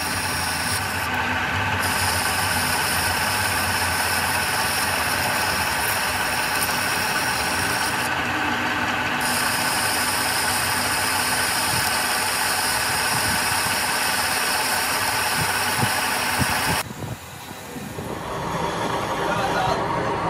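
Metal lathe running with a carbide-tipped tool cutting across the face of a metal gear blank: a steady machining noise with a thin steady whine over it. Near the end the noise dips for a moment, then comes back.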